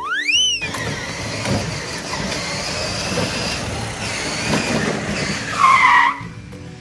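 A toy electric ride-on car's plastic wheels rolling and crunching over gravel and concrete as it is towed along, opening with a quick rising sweep and ending with a short, loud squeal about six seconds in.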